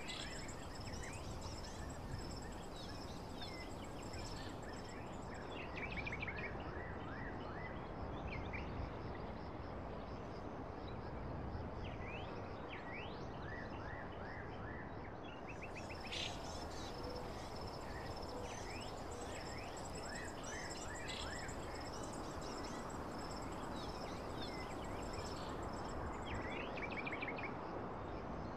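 Outdoor ambience of birds chirping in quick repeated clusters, over a steady high insect trill and a low hiss.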